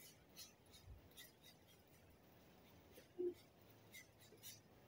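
Near silence: room tone with a few faint, brief high ticks and one soft knock about three seconds in.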